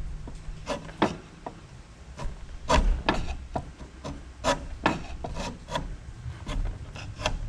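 Carbide-tipped scraper stripping hardened old gasket material off a water pump's gasket surface, in quick repeated strokes of about two a second.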